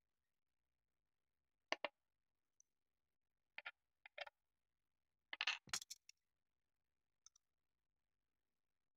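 Small, sharp clicks and taps from metal tweezers and a plastic N-gauge coach body shell being handled, in a few brief clusters with near silence between them; the loudest cluster comes a little past the middle.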